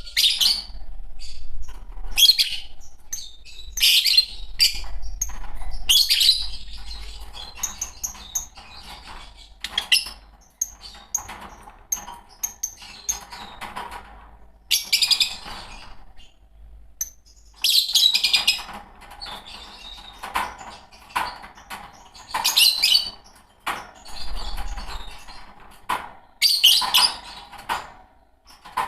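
A pair of Fischer's lovebirds chirping and calling: loud, shrill, scratchy calls come in irregular bursts every second or two, with quieter twittering chatter in between.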